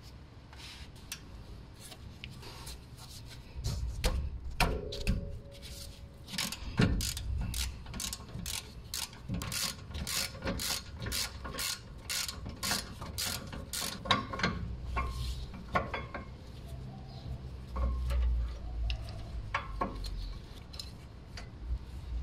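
Hand ratchet clicking as it turns a brake caliper mounting bolt on a Mercedes W212, a long run of regular clicks at about two to three a second through the middle, with a few scattered metal knocks before and after.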